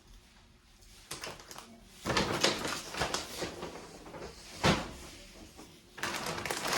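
Groceries being handled and put down: rustling packaging and clatter, with one sharp knock about two-thirds of the way through.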